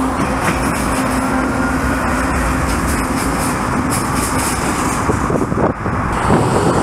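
Several Union Pacific diesel locomotives passing close below, their engines running with a steady drone and the wheels rolling on the rails. The drone's held tone stops about two-thirds of the way through, as the last unit goes by.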